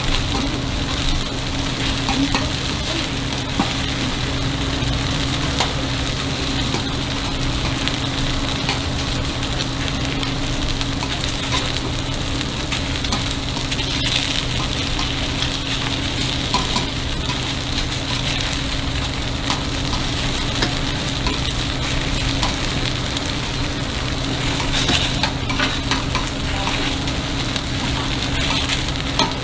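Takoyaki batter sizzling and frying in a hot takoyaki pan, with scattered small clicks of utensils against the pan, over a steady low hum.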